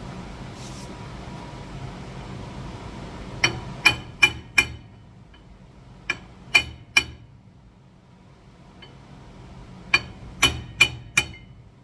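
Hammer blows on steel at a car's rear wheel hub, in three quick runs of four, three and four strikes, each ringing briefly.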